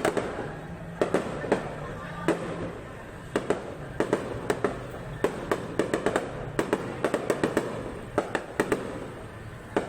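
Aerial fireworks bursting: an irregular run of sharp bangs, several a second at times, over a steady background rumble.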